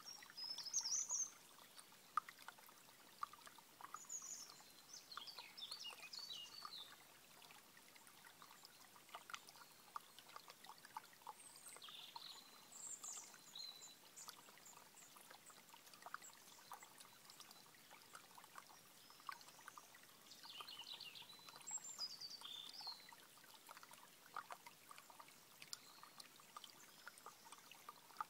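Faint trickling of a small stream running over stones, with birds calling in short, high chirping phrases every few seconds.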